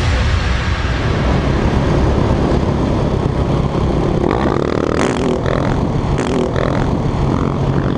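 Supermoto motorcycle engine running steadily under way, heard from the rider's camera with heavy wind rumble on the microphone. A few brief rushes of hiss come in the second half.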